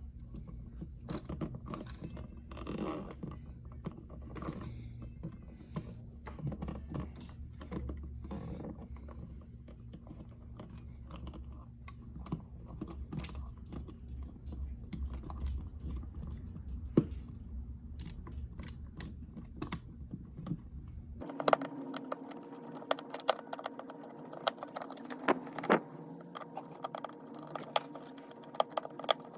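Irregular small clicks, taps and scrapes of hands working a dimmer switch, its screws and the wiring at a wall electrical box. A steady low hum runs under the first two-thirds and stops abruptly about 21 seconds in, where the handling clicks go on over a different background.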